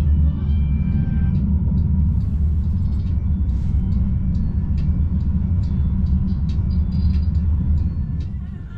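Steady low rumble of a large engine running, easing off near the end, with scattered light clicks over it.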